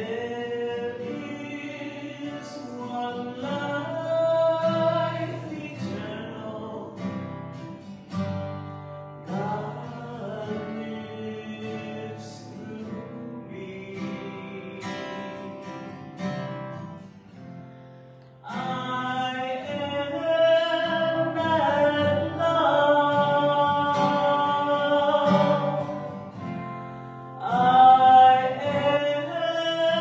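A woman singing a spiritual song to an acoustic guitar accompaniment. The singing grows louder a little past halfway.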